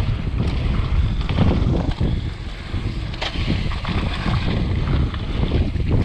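Wind buffeting the microphone of a downhill mountain bike riding fast, with its tyres rolling over a dry dirt trail and a few short knocks from the bike along the way.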